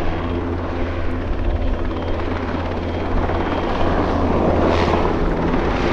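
NH-90 tactical transport helicopter flying a display: a steady low rotor beat with turbine noise, growing a little louder about halfway through.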